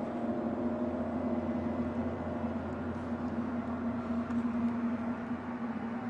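Steady low droning hum holding one pitch, with fainter overtones above it, over a background hiss.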